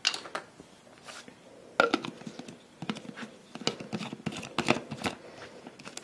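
Plastic kitchenware being handled: a plastic shaker bottle, its scoop and lid knocked and set down, giving a string of light clicks and taps with a firmer clunk about two seconds in.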